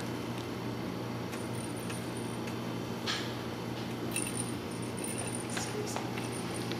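Small bell inside a plastic cat toy ball jingling in two short spells and a few light clicks as kittens bat the ball around, over a steady low hum.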